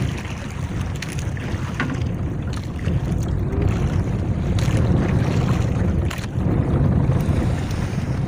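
Steady low rumble of wind and sea around a small outrigger fishing boat, with wind on the microphone and a few short knocks as a handline is hauled in.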